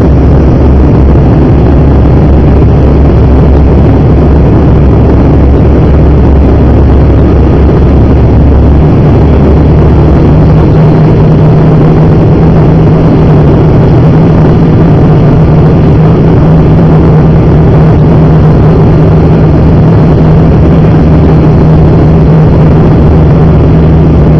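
Cabin drone of an ATR 42-300's twin turboprop engines and propellers on approach, loud and steady. About nine seconds in, the deep low hum gives way to a higher steady note.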